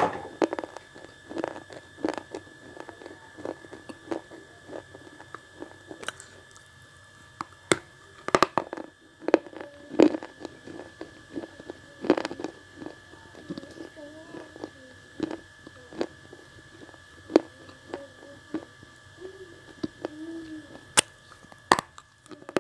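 Red slate pencil blocks bitten and chewed close to an earphone microphone: sharp, brittle crunches at irregular intervals, with a steady high whine underneath.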